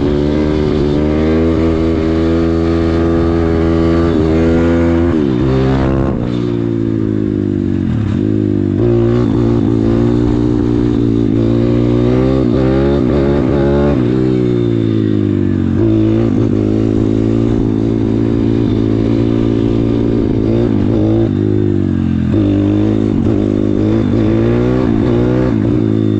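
MRF 160RC-Z pit bike's single-cylinder four-stroke engine under way, its note climbing as it pulls and dropping sharply at each shift or throttle lift, over and over.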